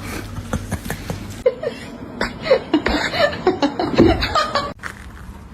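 Soft chuckling laughter, in short broken bits, mixed with scattered clicks and knocks.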